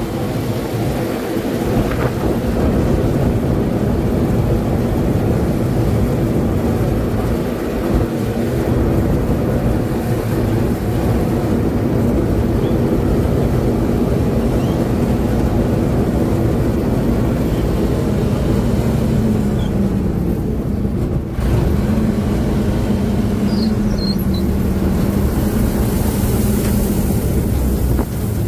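Laverda M100 AL combine harvester running steadily under load while cutting wheat: a continuous engine drone mixed with the noise of the header and threshing machinery, heard from the open operator's platform.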